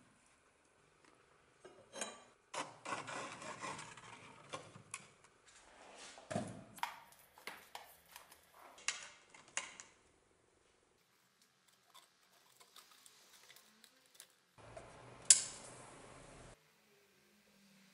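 Handling clatter on a wooden workbench: a plastic bottle set down, with knocks and clicks of metal clips, wires and a metal rod being fitted, coming in scattered bursts. About fifteen seconds in there is one sharp click.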